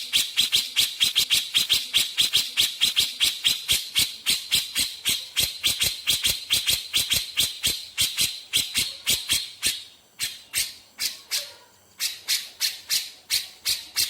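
Grey-cheeked bulbul (cucak jenggot) giving its rapid, harsh rattling 'besetan' call: a long train of sharp strokes at about six a second. The strokes slow and briefly thin out about ten seconds in, then pick up again.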